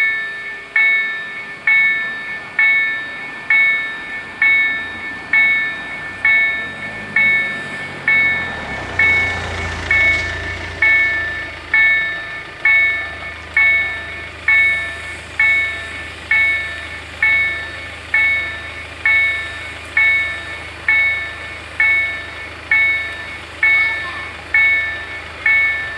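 Level crossing warning bells striking steadily about once a second, each strike ringing out and fading: the crossing is closed with barriers down for an approaching train. About nine seconds in, a car drives up and idles with a low hum.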